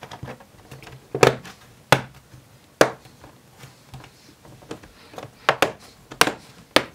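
The plastic clips of an ASUS Vivobook A513EA's bottom panel snap into place as the panel is pressed down onto the laptop. It gives a string of sharp clicks, about six or seven at irregular intervals.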